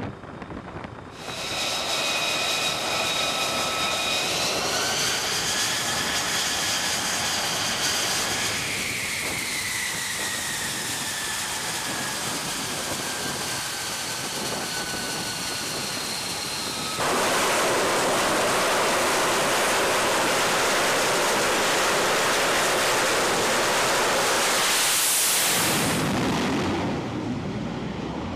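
F-35C Lightning II's single turbofan jet engine running on the carrier catapult: a high multi-tone whine that rises, then slides slowly down, and about 17 s in a sudden jump to a much louder, even rush of jet noise. Near the end a brief, brighter surge as the catapult fires and the jet launches, which then fades away.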